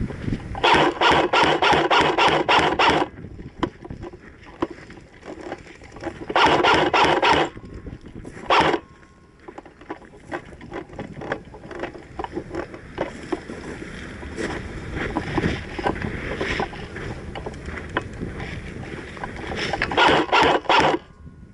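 Airsoft guns firing bursts of rapid shots: a long burst near the start, another about six seconds in, a very short one soon after, and another near the end, with rustling and scattered knocks between them.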